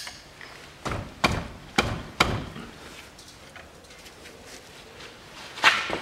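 A 24 mm ring spanner on the front differential's fill plug knocked four times in quick succession, about half a second apart, to break the tight plug loose, then one sharper metallic knock near the end.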